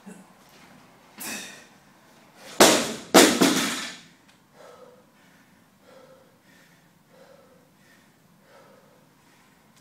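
An 80 kg barbell with bumper plates is dropped from overhead onto a rubber floor mat: it lands with two loud crashes about half a second apart as it bounces. The athlete then breathes hard and regularly, about one breath every two-thirds of a second.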